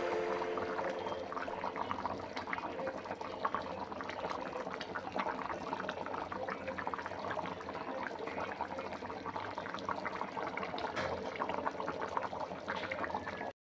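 Egg curry simmering in a pan, bubbling and crackling steadily with many small pops.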